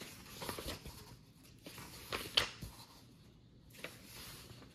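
Paper pages of a softcover workbook being turned by hand: a few soft rustles and swishes, the loudest a crisp paper flick about two and a half seconds in.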